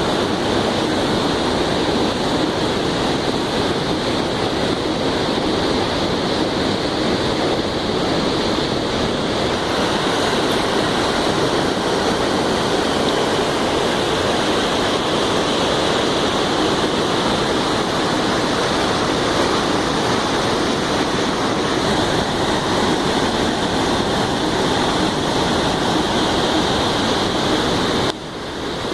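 Waterfall: a steady rush of falling water, which drops away briefly near the end.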